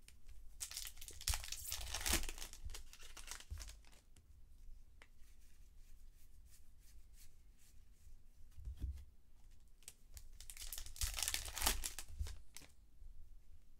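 Baseball card pack wrappers being torn open and crinkled by hand, in two bursts of crackling: one starting about half a second in and lasting about three seconds, another starting about ten seconds in. Between them come faint scattered ticks of cards being handled.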